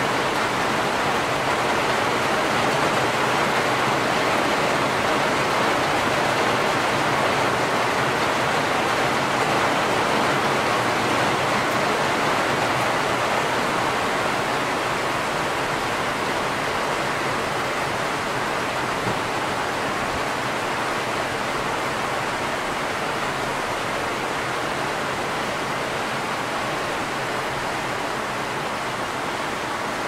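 Steady rain falling, a dense, even hiss with no separate drops standing out; it eases slightly about halfway through.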